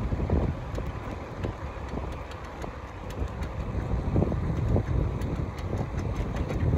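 Wind buffeting the microphone of a moving bicycle in uneven gusts, over the low rumble of tyres rolling on a cracked asphalt path.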